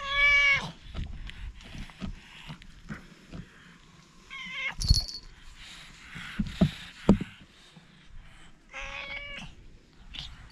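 Domestic cats meowing three times: a loud, falling meow at the start, a shorter, higher one about four and a half seconds in, and another near nine seconds. A few short thumps and knocks come between the meows.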